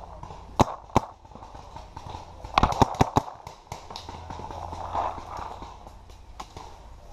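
Paintball markers firing: a single pop about half a second in and another a second in, then a quick string of about six shots near three seconds, followed by a couple of single shots later.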